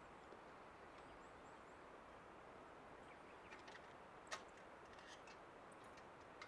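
Near silence: faint steady background hiss, with a few faint high ticks and one sharper click a little past four seconds in.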